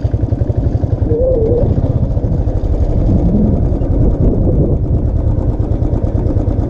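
Royal Enfield single-cylinder motorcycle engine running with a fast, even low beat while riding.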